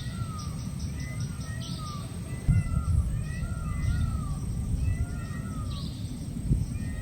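Forest birds calling at dusk: one bird repeats a short note that rises and falls, over and over, with scattered higher chirps. A low rumbling noise runs underneath and grows louder about two and a half seconds in.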